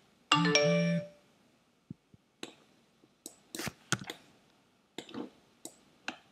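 A short two-part electronic chime just under a second in, followed by scattered clicks of a computer mouse and keyboard.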